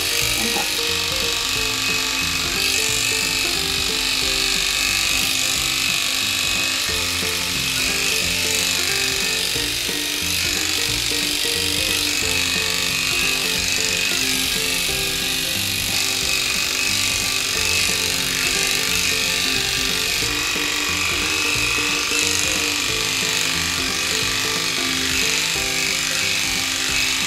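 Background music throughout, over the faint buzz of an electric dog clipper shaving a poodle's coat.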